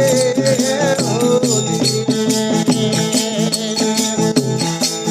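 Instrumental break in an Indian folk devotional song (bhajan): rattling hand percussion keeps a quick, even beat of about four strokes a second over steady held instrumental tones.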